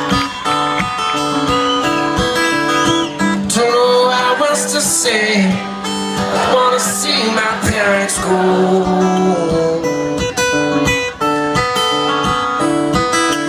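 Live band music led by an acoustic guitar, with drums and other instruments, in an instrumental passage between sung lines.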